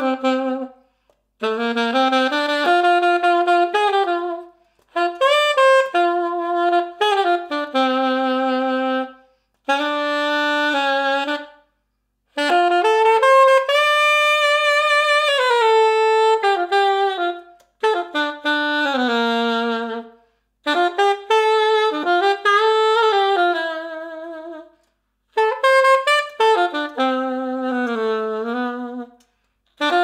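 Unaccompanied saxophone playing a slow jazz melody in phrases of a few seconds, each separated by a short breath pause. Held notes carry vibrato. It is recorded through a ribbon microphone.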